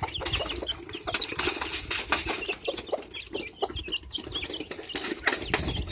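A hen and her chicks settling in a coop: many short high peeps and soft clucks, with rustling and a flutter of wings.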